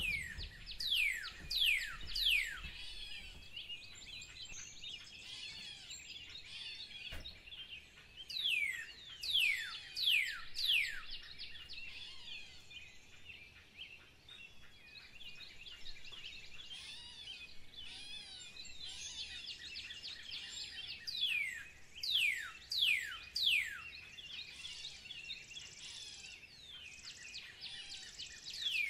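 Birds singing: a steady background of many small chirps, broken several times by runs of four or five loud, steeply falling whistles.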